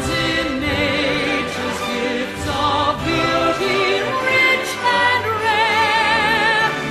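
Music: the national anthem sung by a choir in an operatic style, voices held with wide vibrato over sustained orchestral accompaniment.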